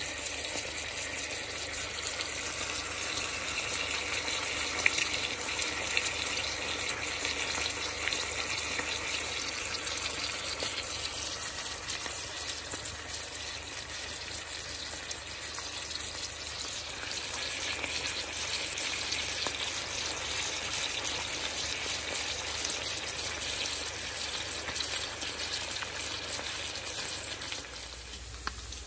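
Bacon strips frying in a stainless steel pan: a steady sizzle full of tiny crackles, with a few louder pops of spitting fat. The sizzle drops somewhat near the end.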